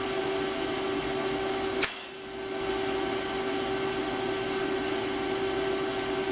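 Steady electrical hum and hiss from the TIG welding setup, with one sharp click a little under two seconds in, after which the sound briefly drops and then returns.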